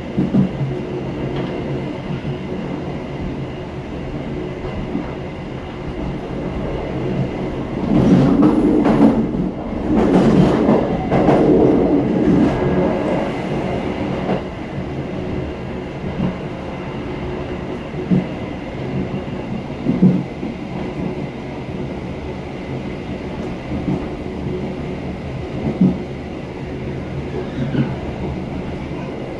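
Train running along the track, with wheels knocking over rail joints every few seconds. A louder, rougher stretch of rumbling comes about a third of the way in.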